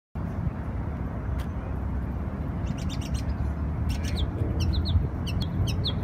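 A songbird singing in short, high chirps. A quick cluster comes about halfway through, then a run of brief down-slurred notes, all over a steady low rumble.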